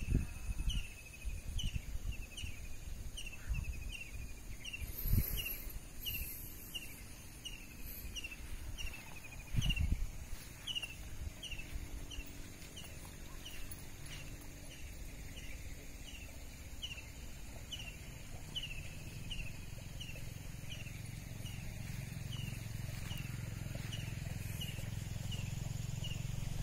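A high, short chirp repeated about twice a second, the same falling note over and over, with low wind rumble and a few thumps on the microphone.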